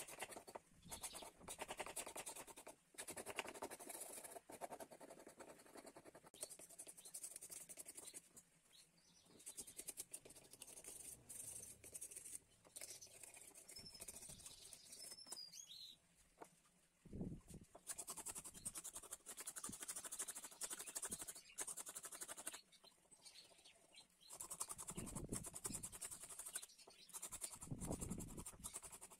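Rapid hand scraping of old paint off a wooden stool leg, fast rasping strokes in runs of a few seconds with brief pauses between them.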